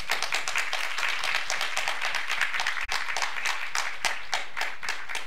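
Audience applauding, many people clapping, with a momentary cut-out in the recording about three seconds in.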